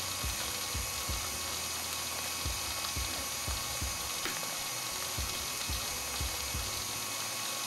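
KitchenAid Artisan tilt-head stand mixer running, its motor whirring steadily and the beater turning through thick butter, cream cheese and sugar batter with a regular low beat about three times a second.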